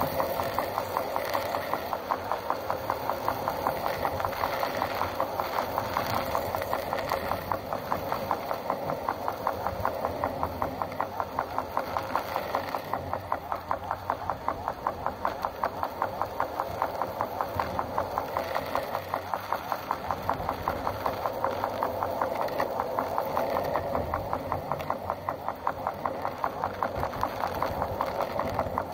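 Vehicle engine running steadily as it drives along a wet road, with a rapid, even pulse.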